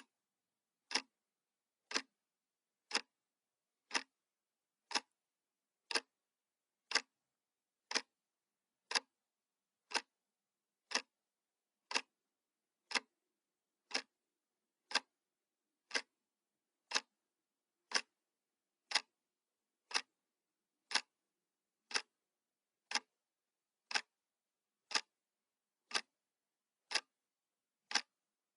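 Clock ticking sound effect: one sharp tick every second, evenly spaced, with silence between the ticks, marking the seconds of a countdown timer.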